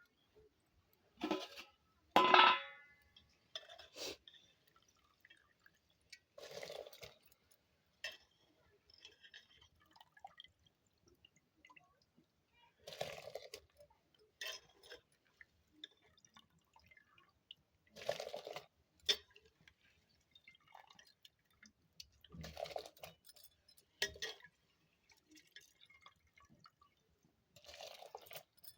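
Rice being washed in a metal vessel: water swished and poured off in short bursts every few seconds, with a loud ringing metal clink about two seconds in.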